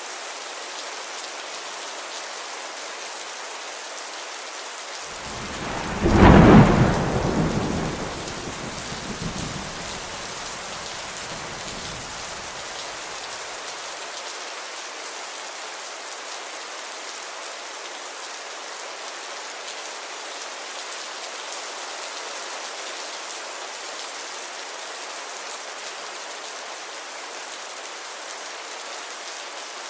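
Steady rainfall, with a thunderclap about five seconds in that rumbles and dies away over the next several seconds.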